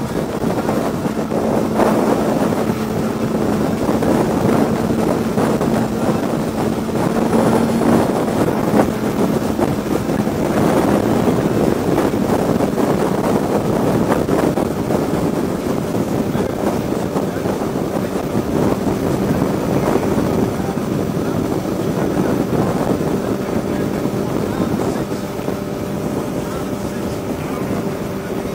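Sport motorcycle engine running steadily at highway cruising speed under heavy wind rush on a helmet-mounted microphone. The engine note steps slightly lower about eight seconds in.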